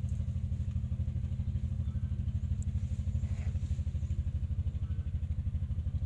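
An engine running steadily, a low, even chugging of about a dozen beats a second.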